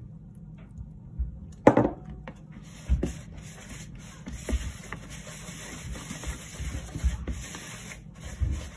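A glass measuring jug is set down on a kitchen worktop with one sharp knock, then a wooden spoon stirs and scrapes sticky bread dough in a plastic mixing bowl, giving irregular dull knocks about once a second. A steady hiss runs behind the stirring from about a third of the way in.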